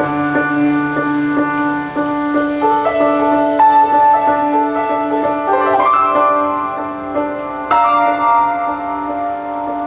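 Slow keyboard music, piano-like: held chords and single notes that change every second or two, with a brighter struck chord about eight seconds in.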